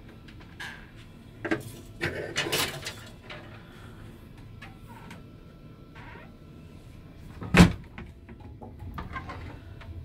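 Wooden wardrobe doors being handled: a few small knocks and a short rattling clatter in the first few seconds, then one sharp knock of a cupboard door past the middle, the loudest sound, with a few light clicks after it.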